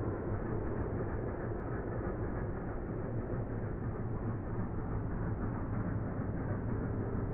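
The three-cylinder steam locomotive Flying Scotsman (LNER A3 60103), working hard on a climb and heard from far off. Its exhaust blends into a steady low rumble with no separate beats.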